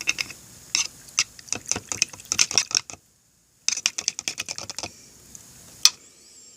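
Quick runs of light clicks and taps from small hard objects being handled, about a dozen strokes a second. They break off for a moment about three seconds in, and a single click comes near the end.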